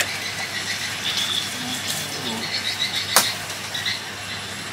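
Insects chirping in short repeated calls over a steady outdoor hiss, with a single sharp click about three seconds in.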